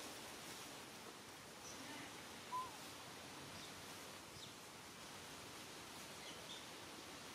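Quiet outdoor ambience with scattered faint, short, high chirps, and one brief louder call that falls in pitch about two and a half seconds in.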